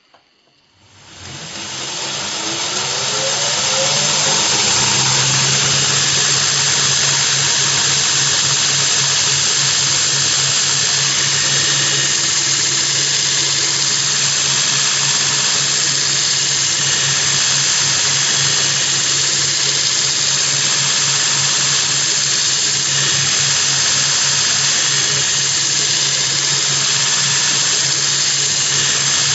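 Surface grinder attachment's motor-driven grinding wheel starting up. It spins up with a rising whine over about three seconds, then runs steadily with a low hum under a loud, high-pitched hiss.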